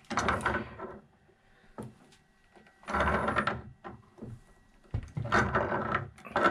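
Three short bursts of grinding and scraping as pliers grip and turn a leaking threaded brass elbow on a copper water pipe to tighten the joint.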